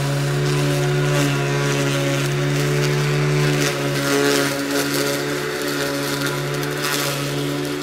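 Ruris RXi 3000 cordless battery lawn mower running, its electric motor and spinning blade giving a steady hum with higher whining overtones. From about four seconds in the hum wavers slightly and a rustling hiss joins it as the blade cuts the slightly damp grass.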